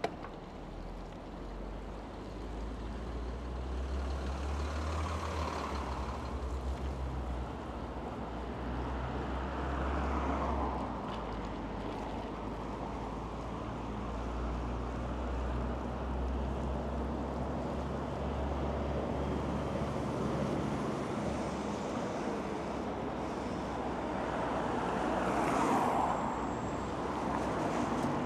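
Road traffic on a wide city street: a steady rumble of cars and buses, with vehicles passing close that swell and fade about 5, 10 and 26 seconds in.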